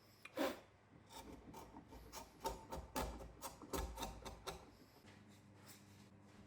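A hand-tool blade shaving pine with about a dozen short scraping strokes, one sharper stroke near the start, stopping after about four and a half seconds: tidying up a sawn tenon cheek.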